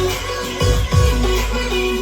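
Electronic music with deep bass kicks and a repeating plucked melody, played loud through a column PA speaker system with a subwoofer and picked up by a binaural microphone.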